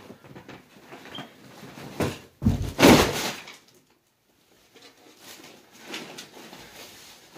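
A loud heavy thump with a rattle about two seconds in, lasting under a second. Faint rustling of movement follows.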